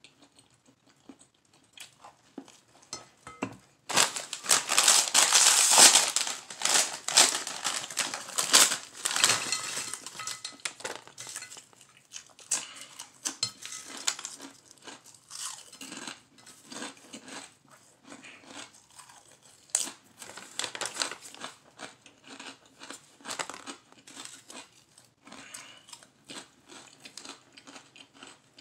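Potato chip bag crinkling loudly as it is torn open and emptied, for several seconds from about four seconds in, followed by quieter crunching and chewing.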